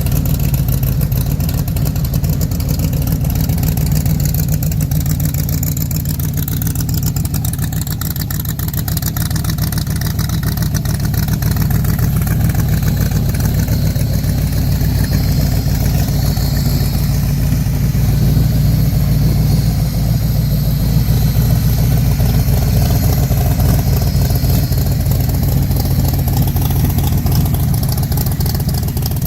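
V8 engine of a Factory Five MK4 roadster idling through new GP headers and side pipes, running steadily and lifting a little in the middle. The exhaust runs without the ticking of a leak now that the new headers are fitted.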